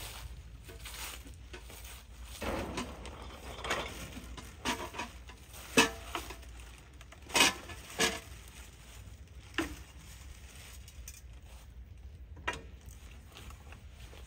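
Gear being unpacked onto a bamboo-slat platform: plastic bags rustling, then a handful of sharp knocks and clatters as things such as a plastic bucket, a wrapped pot and a wooden stick are set down on the slats.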